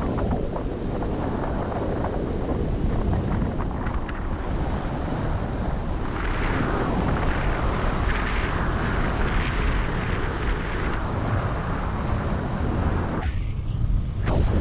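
Airflow from paraglider flight rushing over the camera microphone: a steady wind noise that grows brighter and stronger about six seconds in, with a brief lull near the end.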